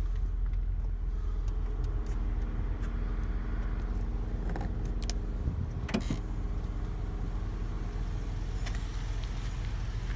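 The power liftgate motor of a Chevrolet Traverse hums steadily as the tailgate moves. It stops with clicks and a knock about five to six seconds in, under a constant low rumble.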